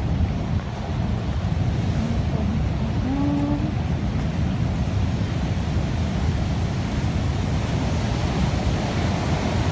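Big ocean waves surging and breaking in a steady rush, with wind buffeting the microphone.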